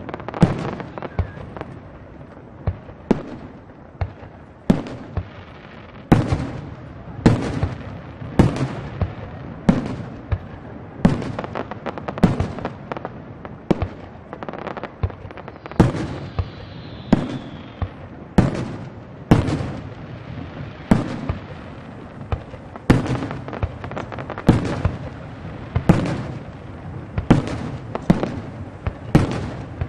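Aerial firework shells bursting in a steady run, about one sharp bang a second, each followed by a short echo. Around the middle, a faint falling whistle.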